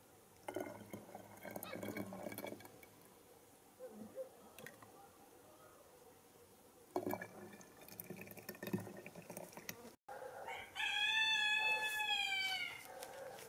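A rooster crowing: one loud, clear crow about two and a half seconds long near the end, falling slightly in pitch as it finishes, after two quieter calls earlier on.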